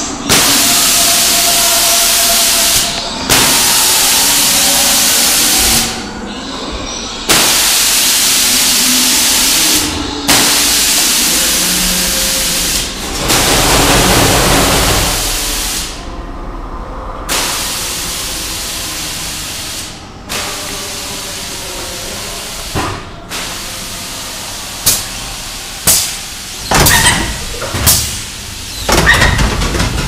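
Haunted-house effects: long bursts of loud hissing that switch on and off abruptly, several times over, followed near the end by a run of sharp bangs.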